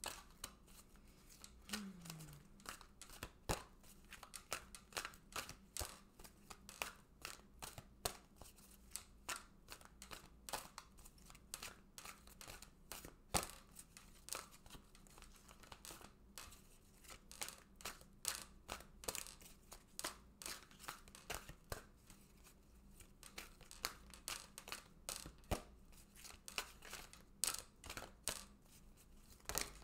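A deck of oracle cards being shuffled by hand, overhand: an irregular run of card slaps, flicks and riffles, several a second, with a few sharper snaps.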